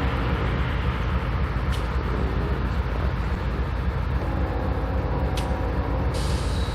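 BNSF freight train's diesel locomotives running with a steady low rumble, with faint steady tones above it for a couple of seconds in the second half. A hiss starts just before the end.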